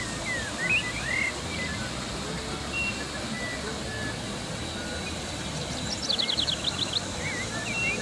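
Steady rush of a small waterfall pouring over rock ledges into a muddy stream. Birds chirp over it, and a quick trill of about eight rapid notes comes about six seconds in.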